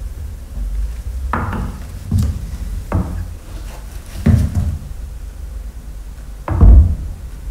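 Large clear plastic discs threaded with plastic rods being shifted about on a floor, knocking and clattering: five separate knocks with short rattling tails, the loudest near the end.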